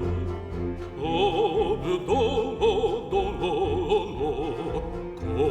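A Japanese military unit song sung with strong vibrato over instrumental accompaniment.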